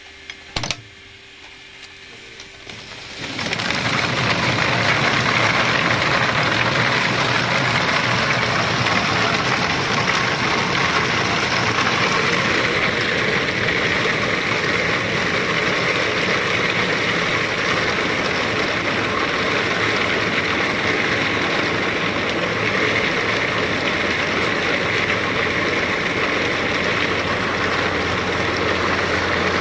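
Walnut hulling machine running with a load of walnuts churning in its drum as the green hulls are stripped off. The noise comes up about three seconds in and then holds steady.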